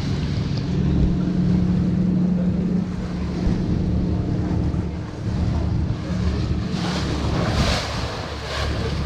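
Passenger ferry boat's engine running with a steady low drone, with wind buffeting the microphone and the rush of water around the hull. Near the end come two louder rushes of noise.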